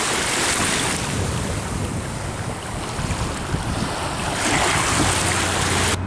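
River Thames water washing and lapping at the foreshore, with wind buffeting the microphone. A low steady hum joins about four seconds in.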